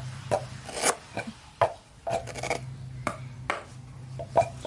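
Cleaver chopping vegetables on a round wooden chopping block: irregular sharp knocks, roughly one or two a second, over a low steady hum.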